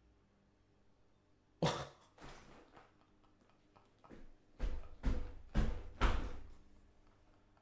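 A man coughing: one sudden sound about a second and a half in, then a run of four coughs about two a second.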